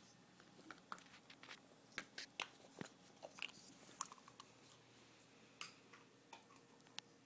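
English bulldog puppy chewing on a bottle cap: faint, irregular sharp clicks and crunches of teeth on the cap, thickest through the middle and thinning out near the end.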